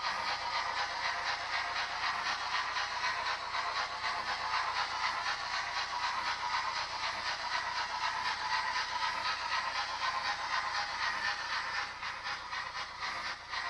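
OO gauge model of an LMS 'Princess' Pacific steam locomotive, its DCC sound decoder playing a steady, fast steam exhaust chuff through the model's small speaker, thin and lacking bass. The sound drops in level near the end.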